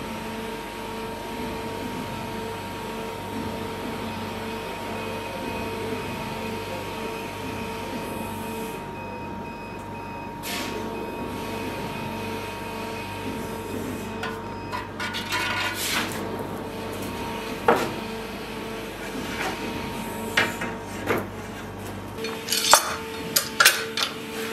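A steady, pitched hum of workshop machinery runs while the sword blade is held in the flaming quench drum, with scattered knocks and taps from about halfway. Near the end the hum stops and a quick run of sharp metal clinks follows as steel clamps are fitted to the blade on the bench.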